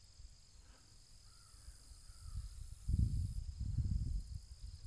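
Steady high-pitched drone of insects in a summer field. A faint bird call comes about one and a half seconds in, and low rumbling noise on the microphone arrives in the second half.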